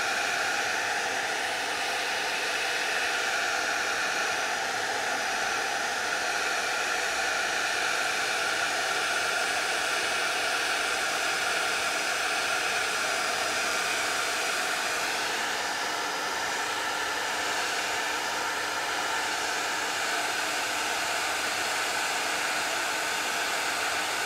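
Heavy-duty handheld hair dryer running steadily on high heat, a constant rush of air with a faint steady tone in it, blowing close down onto a canvas.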